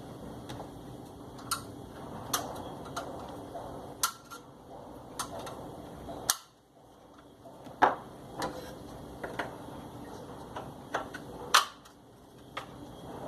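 Scattered sharp clicks and light knocks of washing machine mechanism parts being handled and fitted together, a pulley among them, over a steady low background hum.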